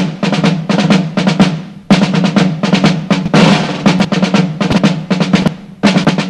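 Marching band playing, led by rapid snare drum strokes and drum rolls over bass drum, with low steady tones underneath; the music stops briefly about two seconds in.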